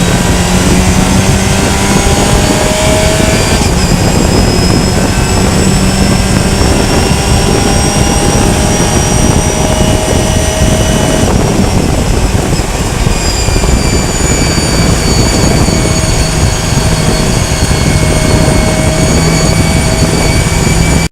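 Race car engine heard from the cockpit, pulling hard under acceleration. The pitch climbs slowly through each gear, with gear changes about 4 and 11 seconds in, over a heavy rush of road and wind noise.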